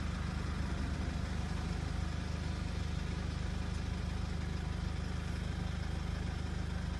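Steady low hum of a car's engine and road noise, heard from inside the cabin.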